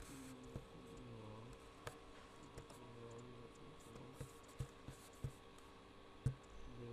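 Scattered single clicks of a computer keyboard and mouse, about eight of them spread irregularly, the loudest about six seconds in.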